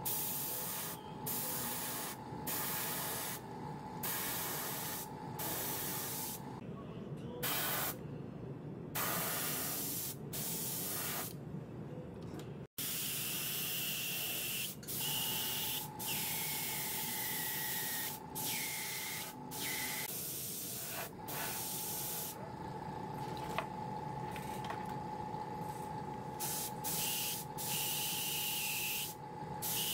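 Airbrush spraying paint in short bursts, the hiss of air and paint starting and stopping each second or so as the trigger is pressed and released. A steady thin whine runs beneath.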